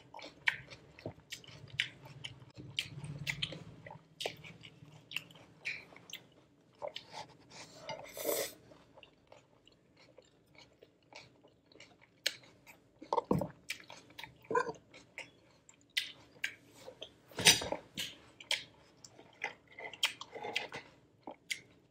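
A person chewing crunchy cucumber salad close to the microphone: irregular wet crunches and mouth clicks, with a quieter pause midway and a few louder crunches later on.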